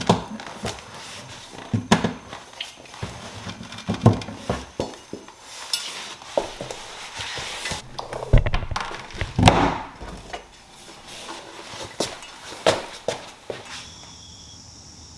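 Irregular knocks, taps and scrapes of cork floor planks being handled and fitted into place. The knocks stop near the end, where a steady high chirring begins.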